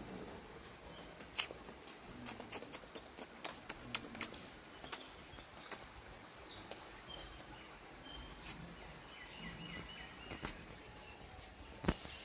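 Scattered light taps and clicks of footsteps on a wooden veranda floor, with a quiet outdoor background. About three quarters of the way in, a bird chirps a quick run of repeated notes.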